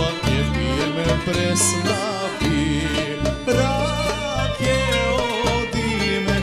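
Live Macedonian folk-pop song: a male singer with a band of clarinet, violin, accordion, electric guitar, bass guitar and drums. Ornamented melody lines with heavy vibrato over a steady, pulsing bass beat.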